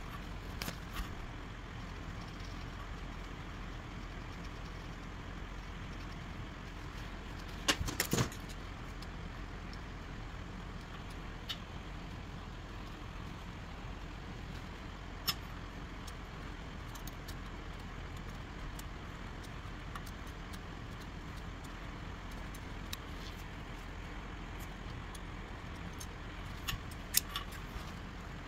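Quiet handling sounds: a few sharp metal clicks and clinks as a steel gear and a vernier caliper are handled on a steel block, the loudest a short cluster about eight seconds in. Under them runs a steady low background hum.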